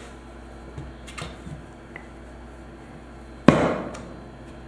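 A few soft taps, then one sharp knock about three and a half seconds in as a metal biscuit cutter is pressed down through the biscuit dough onto the board.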